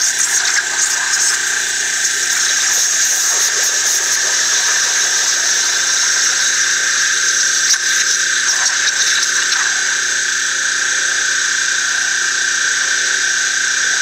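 A 3100 PSI pressure washer with a zero tip, its straight jet of water cutting a trench in muddy soil: a steady, high-pitched hiss with a whine.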